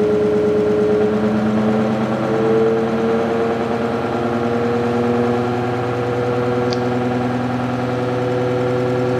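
Electric motor test rig with the ReGen-X stepper motor running: a steady hum of several tones that edges up in pitch as the rig speeds up under rising coil current.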